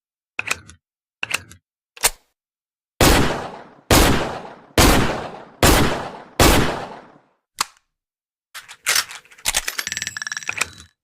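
Taurus Model 605 .357 Magnum revolver: a few sharp clicks, then five shots fired in steady succession, each with a long fading echo. A click follows, then a metallic clatter with ringing tones near the end.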